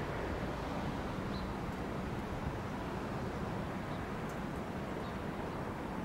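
Distant rebuilt Bulleid West Country class steam locomotive 34027 working, heard as a steady low rush of noise with no clear beat.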